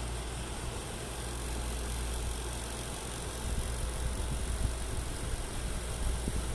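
ZOTAC RTX 4070 graphics card's cooling fans running at raised speed with a rattling noise over a steady low hum; the rattle turns more uneven from about halfway in.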